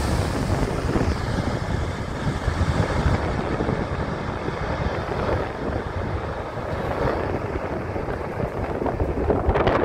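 Steady rumble of a C-17 Globemaster III's four Pratt & Whitney F117 turbofan engines on final approach with gear down, mixed with wind buffeting the microphone.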